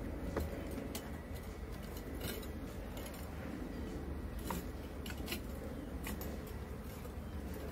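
Scattered light clicks and knocks of beehive equipment being handled, over a steady low rumble.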